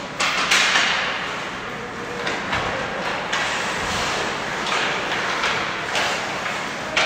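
Ice hockey play: skates scraping and carving the ice, with sharp knocks of sticks and puck, several of them about a second apart, the loudest near the start and at the end.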